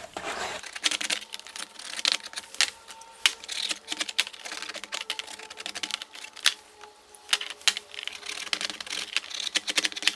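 Crumpled aluminum foil scrubbing rust off chrome-plated snare drum hardware, crinkling and scraping against the metal, with irregular clicks and taps as small metal parts are handled on a plastic tray.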